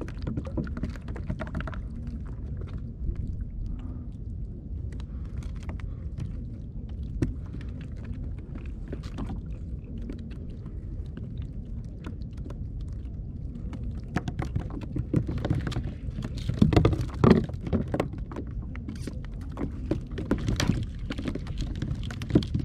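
Steady low rumble of wind and water around a plastic kayak at sea, with scattered knocks and clatter as fish are hauled in on a multi-hook line and handled over the side. The knocks come louder and closer together about 15 to 18 seconds in.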